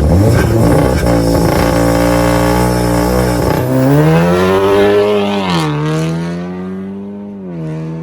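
Volkswagen Golf R's turbocharged four-cylinder engine held at high revs on launch control, then the car launching: revs dip, climb hard, and drop sharply at upshifts about five and a half and seven and a half seconds in, the engine sound fading as the car pulls away.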